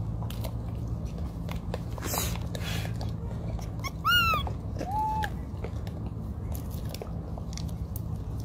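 Two short macaque calls, each rising and falling: a high squeak about four seconds in, the loudest sound, then a lower one about a second later. Underneath are scattered small clicks and crunches of monkeys chewing corn kernels and a steady low rumble.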